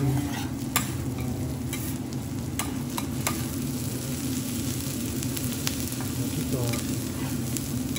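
Chopped food frying in oil on a flat steel teppan griddle: steady sizzling, with a metal spatula scraping and clicking against the griddle several times in the first few seconds. A low steady hum runs underneath.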